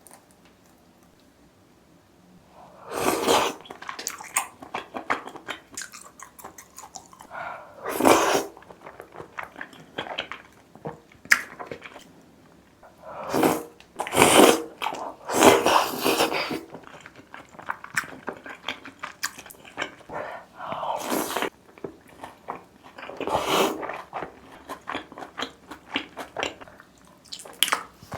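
Close-up eating sounds of tteokbokki and a mozzarella hot dog. After a couple of quiet seconds comes a run of loud bites and crunches, with smaller chewing sounds in between.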